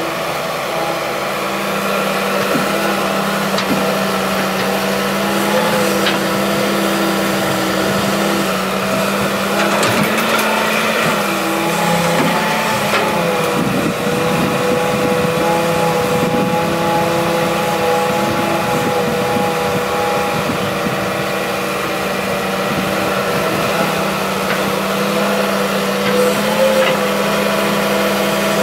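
Hitachi EX200-3 hydraulic excavator working as it digs soil: a steady diesel engine drone whose note steps up and down a few times as the hydraulics take up load, with a few short knocks near the middle.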